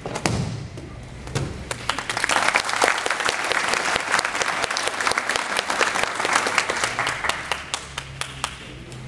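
Spectators clapping, the applause building about two seconds in and thinning out near the end. Just before it, two dull thuds.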